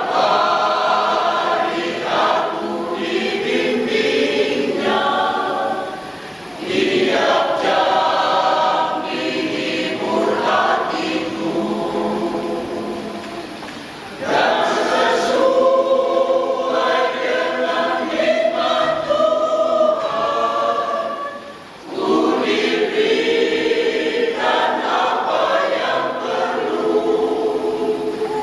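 An elderly church choir singing together, in long sung phrases with short breaks for breath about every seven or eight seconds.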